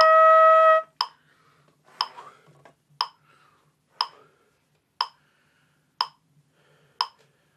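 Trumpet holding a steady long tone that stops about a second in, followed by a metronome clicking once a second.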